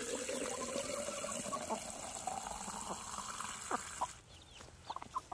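Water from a garden hose spray nozzle running into a plastic jug, a steady rush with a rising tone as the jug fills, cut off suddenly about four seconds in.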